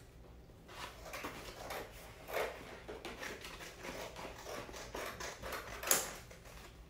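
Scissors cutting through thin cardboard: an irregular string of snips and crunches, with one sharper snip near the end.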